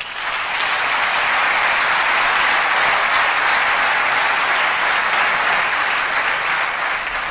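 Sustained applause from a hall full of members of parliament, rising quickly at the start, holding steady for several seconds and dying away near the end.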